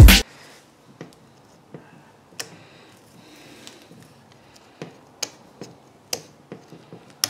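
Background music cuts off a moment in. Then a quiet room with scattered light clicks and ticks, as fingers pick 6061 aluminium chips off the flutes of a stopped end mill.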